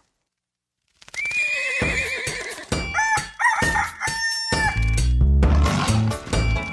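About a second of silence, then a rooster crowing, a cock-a-doodle-doo in several held notes. About four and a half seconds in, a children's song's intro begins with a steady bass beat.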